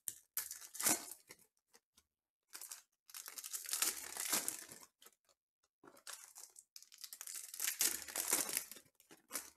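Foil trading-card pack wrapper crinkling and tearing as it is opened by hand: a few short crackles in the first second, then two longer stretches of crinkling, about three and about seven seconds in.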